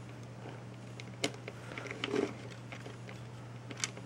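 A few small, sharp clicks and taps of an N gauge model locomotive and coaches being handled and set back on the track after a derailment, over a steady low hum.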